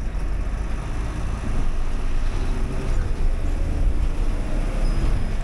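Bus running on a mountain road: a steady low rumble of engine and road noise.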